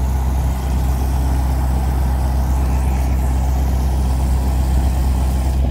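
Ford 8000 water truck's Caterpillar diesel running steadily under load, driving the PTO water pump, with the hiss of water jetting from the roof-mounted cannon.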